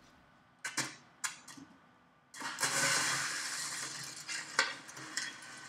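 A scoop rustling and crunching through a heap of popped popcorn, as popcorn is scooped up to fill a paper bag. It starts about two seconds in, after a couple of short clicks.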